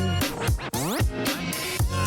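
Electronic dance music with a heavy bass and a steady beat; a bit under a second in, a sweeping pitch effect briefly replaces the beat before it comes back.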